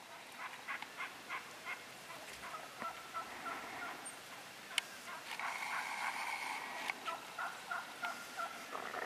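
Wild turkeys calling: runs of short, evenly spaced yelping notes, and a tom's rattling gobble about halfway through.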